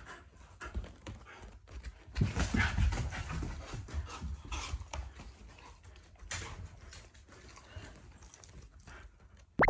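A dog panting and shifting about, with many small clicks and rustles, and a single sharp knock near the end.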